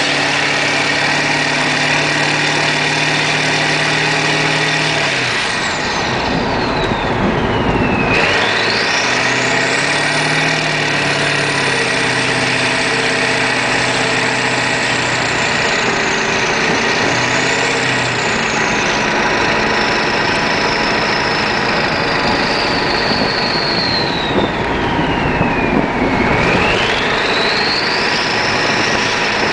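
1996 Ford F-250's 7.3 Powerstroke turbo-diesel V8, straight-piped, running with a loud turbo whistle. The engine runs steadily for the first few seconds. Then the whistle falls sharply in pitch, sweeps back up high and slowly sinks, dips again late and climbs once more as the turbo spools down and up with the throttle.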